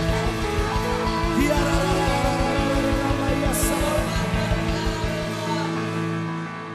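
Music from a medley, with singing over a fast, steady beat; about five seconds in the beat drops out and a held chord carries on, growing softer.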